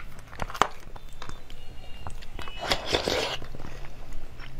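Close-miked eating: bites and wet chewing clicks as a green jelly cup topped with coloured pearls is eaten, with a louder spell of chewing a little under three seconds in.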